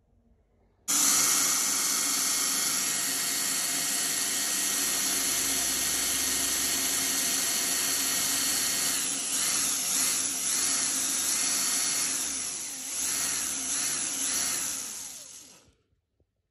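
Cordless drill running, boring pilot holes in a wooden slab. It starts about a second in with a steady whine, then wavers up and down in pitch several times before stopping near the end.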